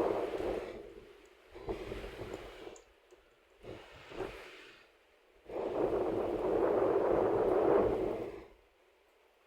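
Dust-storm wind gusting and buffeting the microphone in surges: a few short blasts, then a long loud one from about 5.5 to 8.5 s that drops away suddenly to a faint hiss.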